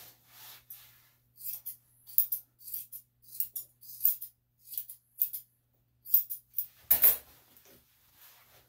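Grooming scissors snipping the dog's hair in quick, irregular snips, often two at a time, with a louder metallic clatter near the end.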